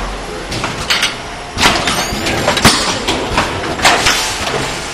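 Pneumatic roll-film bag packaging machine running: a steady machine hum broken by a string of irregular clacks and short hissing bursts from its air-driven parts, the loudest about two and a half and four seconds in.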